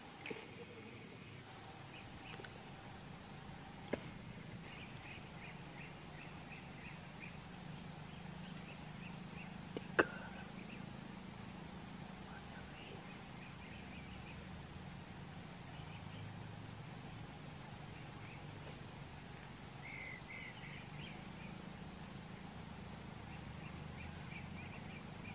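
Insects calling in a steady, regular pulse of two high notes alternating, over a low hum. Two sharp clicks break through, one about four seconds in and a louder one about ten seconds in.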